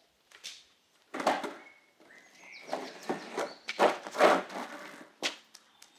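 Skateboard on asphalt, pushed off and ridden: several rough bursts of wheel and foot noise, then a sharp clack of the board about five seconds in. Birds chirp briefly in the background.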